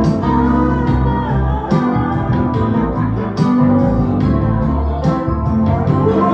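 Live band music played loud: an instrumental passage of guitar and electric organ over a steady bass and drum beat.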